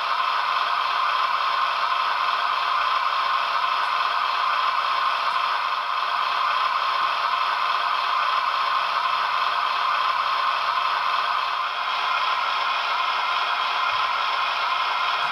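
HO-scale model diesel locomotive and freight cars running on model track: a steady whirring rattle of the small motor and the wheels on the rails.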